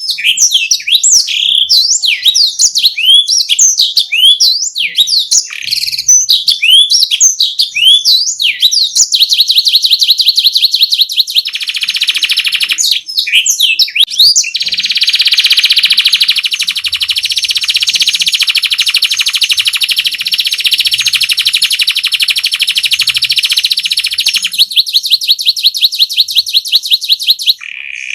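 Domestic canary singing a continuous rolling song. First comes a rush of quick rising and falling whistled notes, then fast even trills (rolls), the longest lasting about ten seconds from the middle on, and near the end a run of evenly repeated notes.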